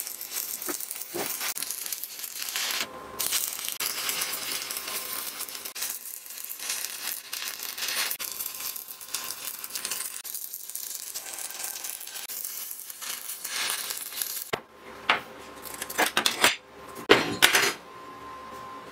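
Stick (arc) welder crackling steadily as hex bolts are welded onto a mild steel plate, with a brief break about three seconds in. The arc stops about fourteen and a half seconds in, followed by several sharp metallic knocks.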